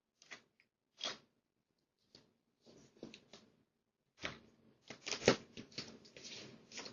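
Irregular rustles, scrapes and knocks, sparse at first, then thicker and louder from about four seconds in, with the sharpest knock about five seconds in.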